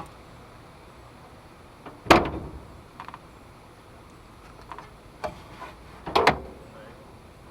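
Two loud clunks about four seconds apart, with a few lighter clicks and taps between them, from handling things at a car that is not running.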